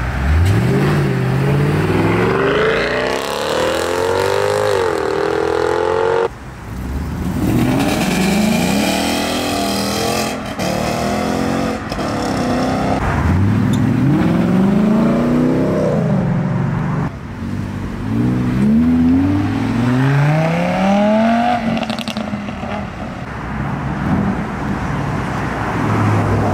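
Several cars accelerating hard one after another, their engines revving in repeated rising sweeps. The first long pull cuts off abruptly about six seconds in.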